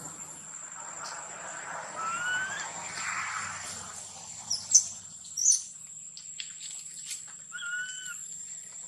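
Forest ambience: a steady high-pitched insect drone with birds calling over it. There are two slurred whistled calls, one about two seconds in and one near the end, and a pair of short, sharp high chirps around the middle, which are the loudest sounds.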